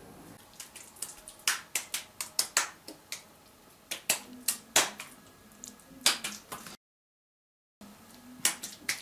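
Wet hands slapping a lump of minced meat back and forth between the palms, shaping a cutlet: a run of sharp, wet slaps, several a second, broken by a gap of about a second in the middle. The patting knocks the air pockets out of the mince so the cutlet won't crack.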